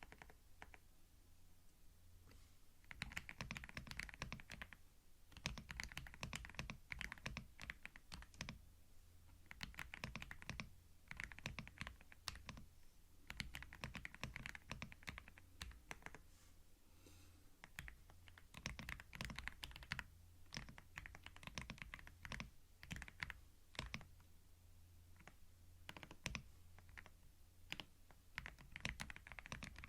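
Computer keyboard typing, recorded ear to ear on a binaural microphone: runs of rapid keystrokes broken by short pauses, over a faint low hum. Only a few scattered clicks come in the first few seconds before the steady typing starts.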